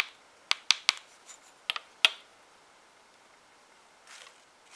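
A plastic measuring spoon tapping against the rim of a small plastic cosmetic jar to knock its contents out: about six sharp clicks over the first two seconds. A faint soft rustle about four seconds in.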